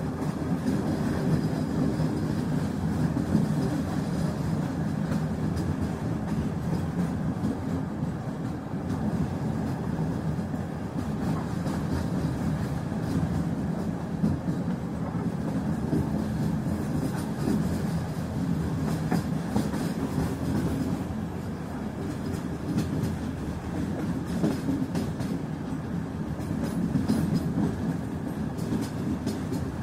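A steady low rumble of a vehicle in motion, with light irregular clicks and clatter over it.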